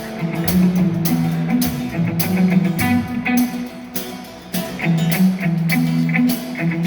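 Band playing a rock groove, with drum kit hits and cymbal crashes standing out in the mix over sustained guitar notes, because the other instruments were monitored through headphones.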